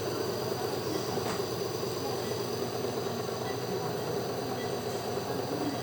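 Compressor nebulizer running during an inhalation treatment: a steady, unchanging machine hum with a hiss over it.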